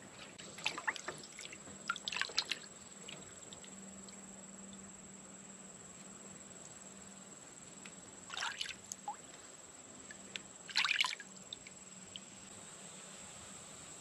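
Water splashing and trickling in a galvanized metal tub as potatoes are scrubbed by hand, in four short bursts: two close together near the start, then two more later on.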